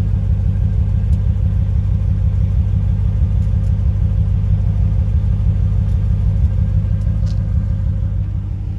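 1995 Corvette's V8 exhaust running steadily at an even speed. The engine has an intermittent misfire.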